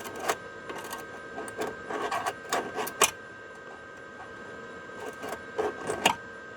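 Sheet-metal patch piece being handled and fitted against a truck's cab corner: irregular sharp metallic clicks and knocks, the loudest about three seconds in and again near six seconds, over a faint steady high tone.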